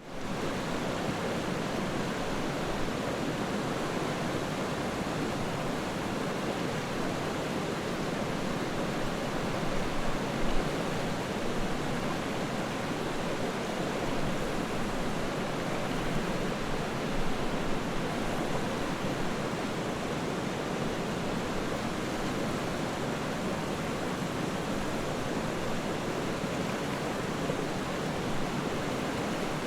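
Floodwater rushing, a steady continuous rush of water with no break.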